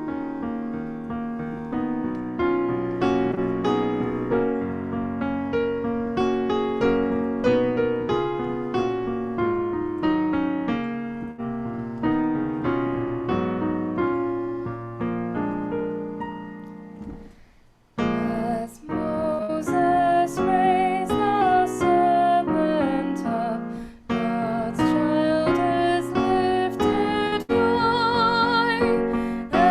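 Piano music that fades out about seventeen seconds in; after a brief pause a new piece begins on piano with a melody line carrying vibrato above it.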